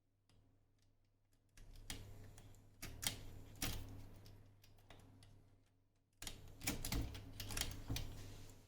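Two spells of close, sharp mechanical clicking and clattering, like small parts being handled, over a low steady hum.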